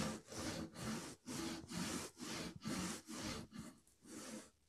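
Brass-backed hand saw cutting a kerf into a block of wood with steady back-and-forth strokes, about two a second.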